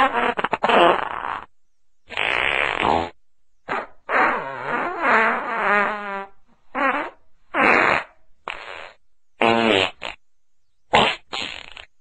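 A string of about ten fart sounds, one after another with short gaps, some short and raspy. One longer fart with a wavering pitch comes about four seconds in.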